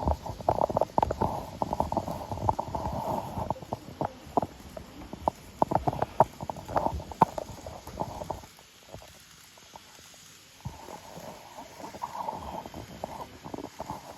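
Old-livery Hokuto train's motor running with a rattling, clicking abnormal noise over a steady hum, which the owner takes as a sign the motor is wearing out. It goes quiet for about two seconds past the middle, then the hum returns more softly.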